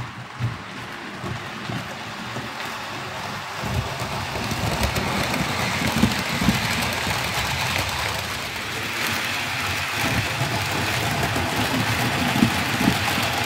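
Model train running on a layout: the locomotive's motor and the wheels of a long rake of coaches rattle and click over the rail joints and pointwork in a steady noisy rumble. It grows louder about four seconds in as the train nears.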